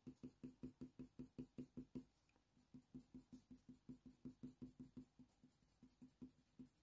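Faint, rapid strokes of a Polychromos coloured pencil on hot-press watercolour paper, about five a second, laying down grey shading. The strokes pause briefly about two seconds in, resume, and stop about five seconds in.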